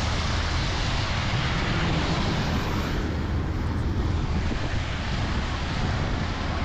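Car driving on a wet road, heard from inside the cabin: steady rushing road and engine noise with a low rumble.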